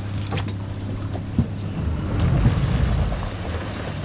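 Suzuki outboard motor running steadily, swelling louder for about a second and a half past the middle as it churns prop wash at the stern, with wind and water noise over it. A single sharp knock comes about a second and a half in.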